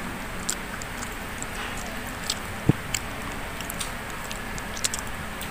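Close-up eating sounds: a person chewing grilled chicken and rice, with small wet smacks and clicks as fingers pull the meat apart, and one louder knock about halfway through.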